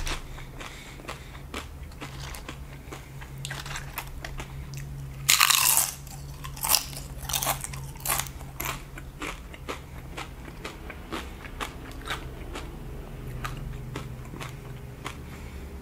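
Close-up chewing and crunching of tortilla chips topped with cheese sauce, crisp crackles throughout with one loud crunch about five seconds in.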